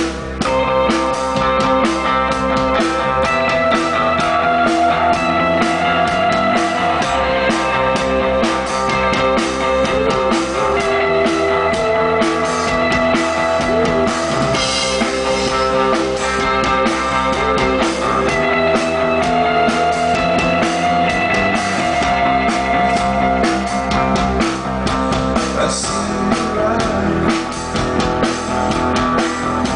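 Rock band playing a song live: drum kit, guitars and bass.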